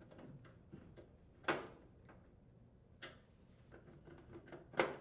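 Light metallic clicks and knocks as the dryer's sheet-metal lower access panel is fitted and its screws are driven in with a nut driver. Three sharper knocks stand out, about a second and a half apart, with fainter ticks between.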